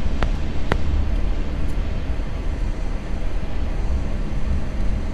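Steady low rumble of a car's engine and tyres heard from inside the cabin while driving along a highway, with two short clicks about half a second apart near the start.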